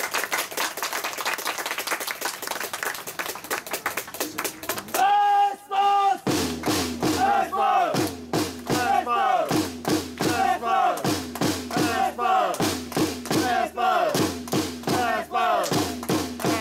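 Supporters clapping, then a crowd chant: two long held calls about five seconds in, then a steady rhythmic chant of short shouts that fall in pitch, with claps or drumbeats between them.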